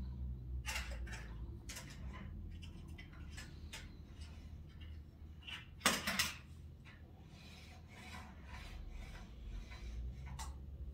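Toy cars and a plastic toy car carrier truck handled on a wooden floor: scattered clicks and scraping, with one louder clack about six seconds in.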